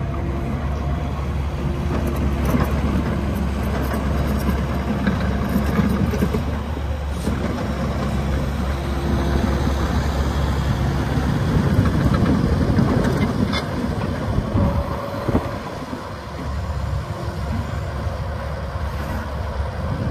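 2018 Kubota KX080-4a excavator's diesel engine running under hydraulic load as the machine swings its upper structure round and works the boom, arm and bucket. A steady low drone, with short higher tones coming and going over it, shifts about eleven seconds in.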